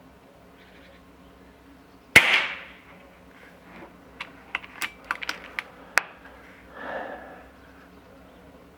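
A single shot from an Air Arms S510 PCP air rifle: a sharp crack with a short decaying tail about two seconds in. About two seconds later comes a quick run of sharp metallic clicks as the cocking lever is cycled to load the next pellet, then a brief soft rustle.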